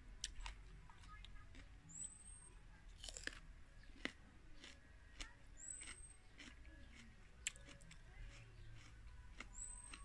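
Quiet close-up chewing and crunching of a mouthful of spicy papaya salad and raw vegetables, with scattered crisp crunches.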